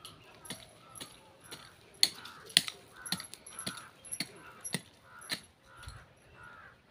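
A dog panting steadily, about two breaths a second, over sharp clinks of bangles on a wrist as a hand digs in the soil. The loudest clinks come about two seconds in.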